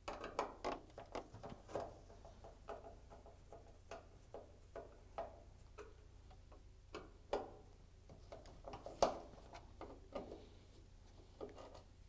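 Phillips screwdriver turning screws out of a dryer door's metal hinge: a run of faint, irregular clicks and ticks, with one sharper click about nine seconds in.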